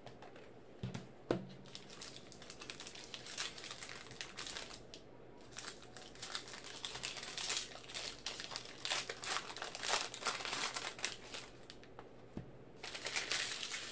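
Wrapper of a football trading-card pack being torn open and crinkled by hand: a run of irregular crackling rustles, with a short pause about five seconds in.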